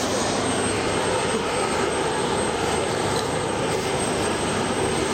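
Steady outdoor noise of a busy public square: an even, continuous rush with no distinct events standing out.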